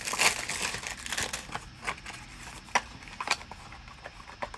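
Packaging being unwrapped and handled: wrapping crinkling in irregular short bursts, with a few sharper taps from a cardboard product box.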